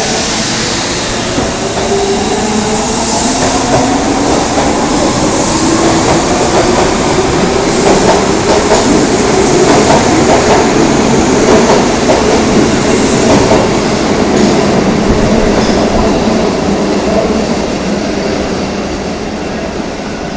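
Osaka Municipal Subway Tanimachi Line 22 series train pulling through the station, its traction motors whining in rising tones over the first several seconds as it picks up speed, with wheel and rail clatter. Loudest around the middle, then slowly fading.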